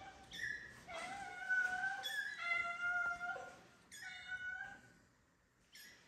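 Cats meowing: about five drawn-out meows, two of them overlapping in the middle, and a short one near the end.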